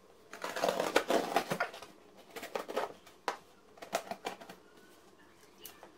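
Scissors cutting through packing tape on a cardboard parcel: an irregular run of scraping, crackling bursts with a few sharp clicks, the longest burst in the first second and a half.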